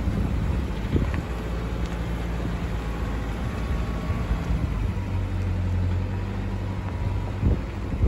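Toyota Prado four-wheel drive driving slowly over a rocky track: a steady low engine hum with rough road noise, and a knock about seven and a half seconds in.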